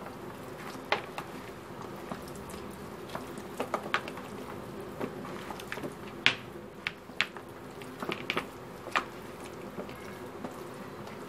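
A hand squishing raw chicken wings in a wet soy sauce and ginger-garlic marinade in a plastic container: irregular wet clicks and squelches.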